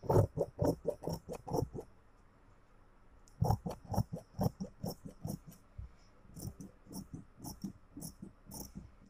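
Tailor's scissors snipping through blouse fabric along a chalked cutting line: three runs of quick cuts, about four snips a second, with short pauses between the runs.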